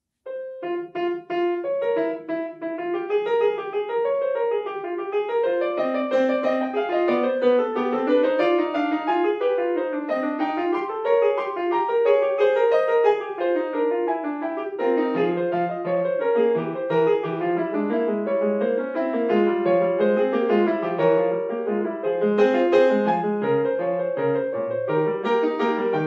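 Yamaha grand piano played solo, starting a piece right after a silent pause: a quick, flowing line of notes in the middle register, with deeper bass notes joining about halfway through.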